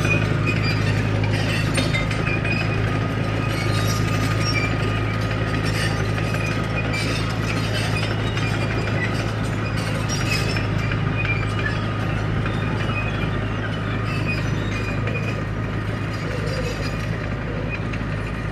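Crawler bulldozer's diesel engine running steadily, with scattered light metallic clinks from its tracks and undercarriage.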